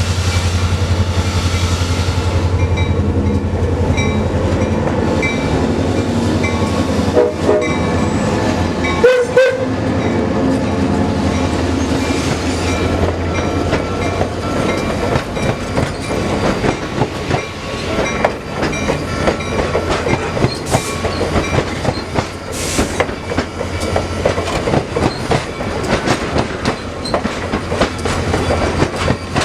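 Trains moving through a railroad yard. A locomotive engine runs steadily at first, wheels click over rail joints throughout, and a horn sounds briefly about nine seconds in.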